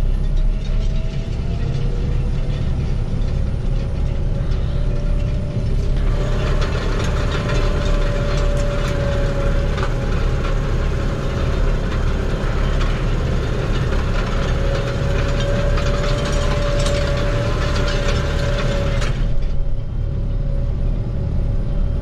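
Tractor pulling a Hatzenbichler Vertikator tine harrow and seeder with a Cambridge roller: a steady low engine rumble and a held whine under a metallic rattling clatter of the implement, which grows louder about six seconds in and drops back about nineteen seconds in.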